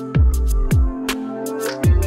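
Electronic background music with a steady beat: deep thumps that slide down in pitch, sharp snappy hits and held synth tones.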